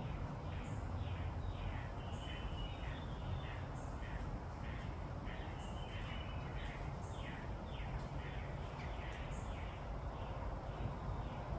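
Birds calling in the trees: a long run of short, harsh, falling calls, several a second, with faint high pips about once a second, over a steady low rumble.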